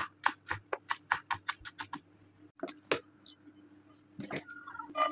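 Cleaver chopping onion on a cutting board: a rapid, even run of knocks, about five a second, fading out about two seconds in. A few scattered knocks and a short clink follow near the end.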